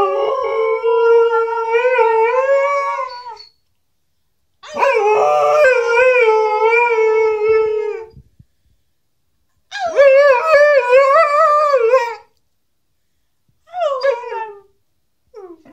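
Alaskan malamute howling: three long howls of a few seconds each, the pitch wavering up and down, followed by two short falling howls near the end.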